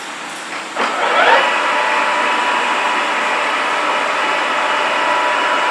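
Large manual lathe's spindle drive starting up in the counterclockwise direction: about a second in, a rising whine as the spindle comes up to speed, then a steady mechanical whine with several constant tones as it runs.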